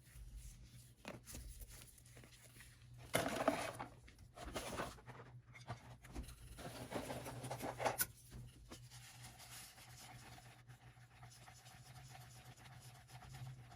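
Rustling and scraping handling noises with a few knocks, the loudest patches about three and seven seconds in, and a sharp click about eight seconds in; after that a faint steady hum with a single tone.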